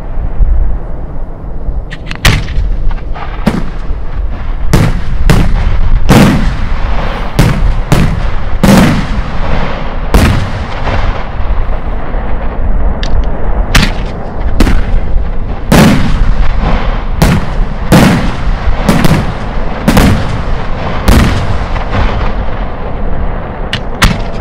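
Italian aerial firework shells bursting one after another: about twenty sharp bangs, irregularly spaced, starting about two seconds in. Each bang trails a rolling echo over a steady low rumble.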